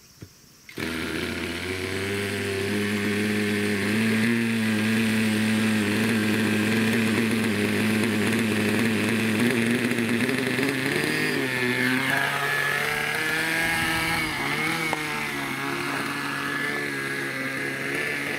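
O.S. 32 two-stroke glow engine of a Hirobo Shuttle RC helicopter catching about a second in and then running at a steady idle. From about twelve seconds in its pitch wavers up and down. This is a start after about a year of garage storage with no maintenance.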